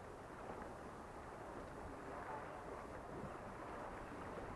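Steady seaside ambience: small waves washing against the shore rocks, with wind on the microphone.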